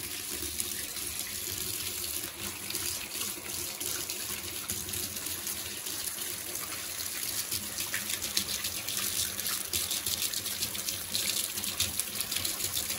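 Tap water running in a thin stream into a small plastic strainer of tomato seeds and splashing into the sink, a steady rush. The seeds are being rinsed to wash the leftover gel off them.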